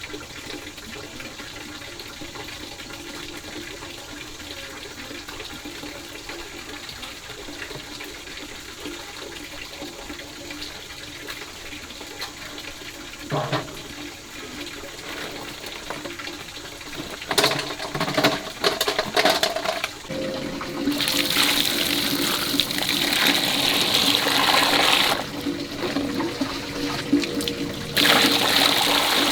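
Water splashing and pouring in loud spells in the second half, over a steady low background.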